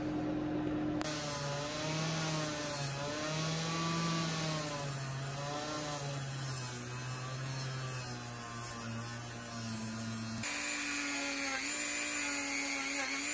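Small 3-inch bench grinder with a fabric buffing wheel running as a vintage pocket knife is cleaned on it, its motor whine wavering in pitch. About ten seconds in it gives way to the higher whine of a Dremel rotary tool.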